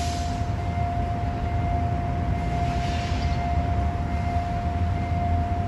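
Steady electronic warning tone of a railway level-crossing signal, with a low engine rumble underneath.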